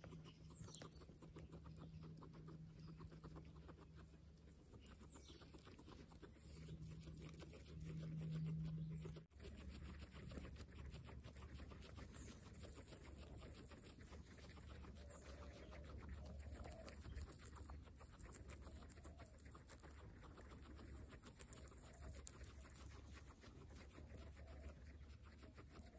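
Guinea pigs chewing fresh grass close up: a faint, rapid crunching made of many small clicks, over a low steady hum.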